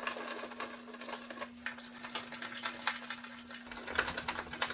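Light, irregular clicks and rattles of metal bolts and a screwdriver as a mounting bracket is screwed onto the back of a flat-screen TV, over a faint steady hum.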